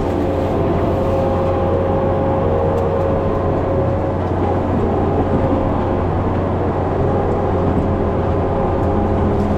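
Skid steer's diesel engine running steadily under load, a constant low drone with a steady hum above it and no breaks.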